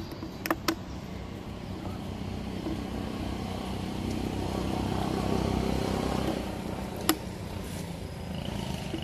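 A motorbike engine running, growing louder to about six seconds in and then easing off. A few sharp plastic clicks come from a young macaque biting and twisting the cap of a plastic water bottle, twice just after the start and once about seven seconds in.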